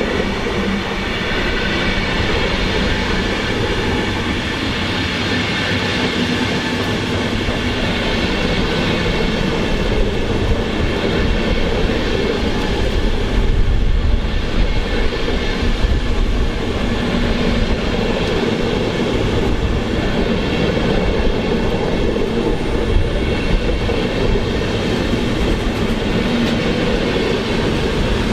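A train running on the tracks through a railway station: a steady rumble of wheels on the rails, with several steady high tones over it.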